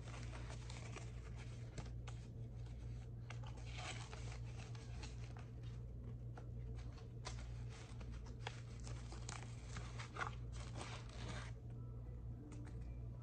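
Crinkling and rustling of paper wrapping and a plastic tray as a camera is unpacked from its box, in many irregular strokes that die down about a second and a half before the end.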